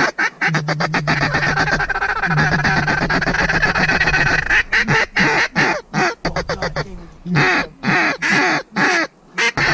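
Several waterfowl calls blown at once, duck quacks and goose honks in a fast, overlapping stream to draw in passing ducks. The calling is dense for the first few seconds, then breaks into separate shorter series.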